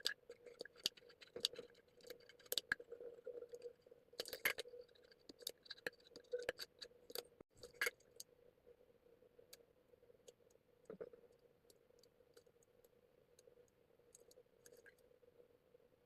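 Faint clicks, taps and light scraping of small craft materials being handled by hand. They come thick in the first half and only now and then after that, over a faint steady hum.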